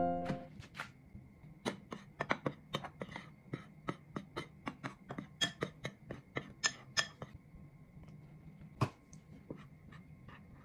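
Metal spoon clinking against a ceramic bowl while stirring dry flour, two or three sharp clicks a second, stopping about seven seconds in, with one last clink a little later. Piano music fades out at the very start, and a faint steady high tone sits underneath.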